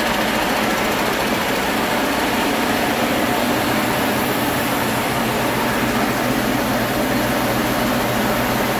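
A Detroit Diesel DD15 inline-six truck diesel engine running steadily on a test stand. It runs evenly with no misses or knocks, a used engine in good running order.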